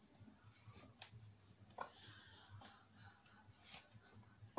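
Near silence with a few faint clicks and rustles as a silicone chocolate mould is flexed and peeled to release the set chocolates.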